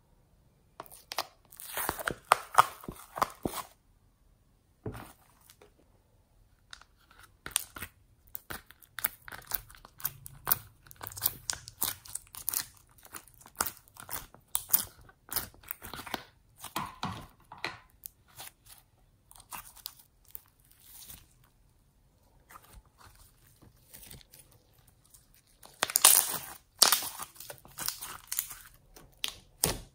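Hands squishing and pressing glossy slime, making sticky clicks and crackles in irregular bursts, loudest about two seconds in and again near the end.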